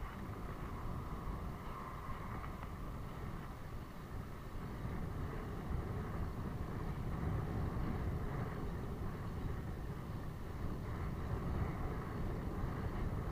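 Steady low rumble of wind on the microphone and tyre noise from a road bicycle in motion, recorded on a handlebar-mounted camera, a little louder from about five seconds in.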